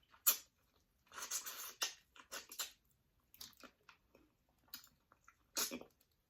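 Close-miked mouth sounds of eating cold spicy seafood boil: wet chewing and smacking, with sharp clicks and a longer, louder chewing stretch about a second in and again near the end.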